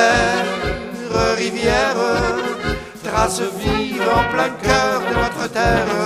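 A brass orchestra playing an instrumental passage, with trumpets and trombones carrying held, wavering melody notes over a steady, evenly pulsing bass beat.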